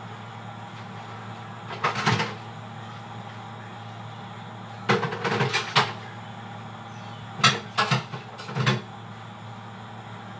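Kitchenware knocking and clattering as it is handled at a sink, in three short bursts of sharp knocks, over a steady hum.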